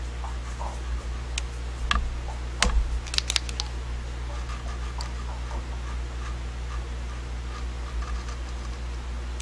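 White paint marker's tip tapping and scratching on painted plywood: scattered sharp clicks, the loudest cluster about two and a half to three and a half seconds in, with faint scratching between them over a steady low hum.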